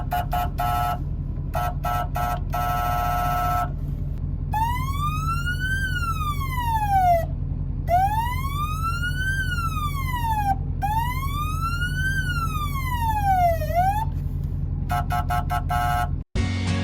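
An electronic siren sounds over a steadily running vehicle engine. It gives bursts of rapid, stuttering yelps, then three slow wails that rise and fall about three seconds each, then more quick yelps. It cuts off abruptly just before the end.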